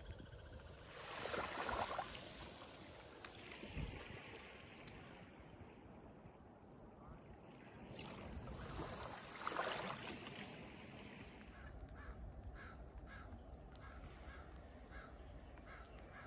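Shallow surf washing over sand, swelling twice. Near the end a crow caws repeatedly, about two caws a second, and a few thin, high, falling chirps sound in between.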